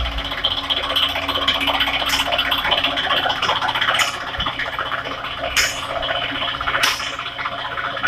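Mahindra Thar CRDe's four-cylinder diesel engine idling steadily, with a few short sharp sounds over it.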